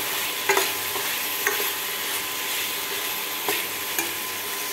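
Eggplant and potato pieces being sautéed in hot oil in a stainless steel pan, with a steady sizzle throughout. A steel ladle stirring them scrapes and clinks against the pan a few times.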